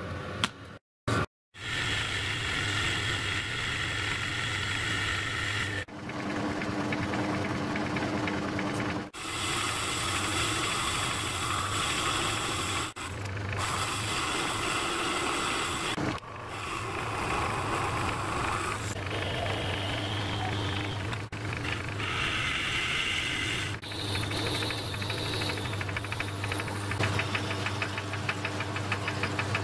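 Metal-turning lathe running under power, with its motor hum steady underneath, heard in a series of short cut-together takes. The chuck spins a steel adapter blank while it is turned and then centre-drilled from the tailstock. The cutting noise on top changes from take to take, and near the end there is a fast, even chatter.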